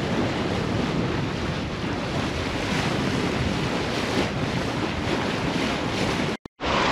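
Wind buffeting the microphone over choppy sea around a sailing yacht, a steady rush that drops out for a split second near the end.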